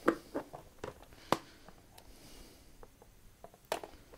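Rummaging through piles of scrap phone parts in search of a display: scattered light clicks and knocks of small parts and containers being handled, with one sharp click about a second in and a cluster of knocks near the end.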